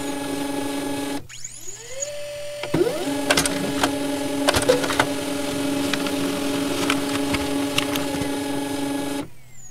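Intro sound effect: a steady electronic hum of several held tones. It thins out about a second in, returns with a tone sliding upward, then carries scattered sharp clicks before cutting off suddenly near the end.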